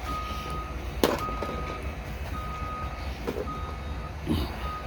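Reversing alarm of a construction vehicle beeping: one steady high beep a bit more than once a second, repeating evenly. A single sharp knock about a second in.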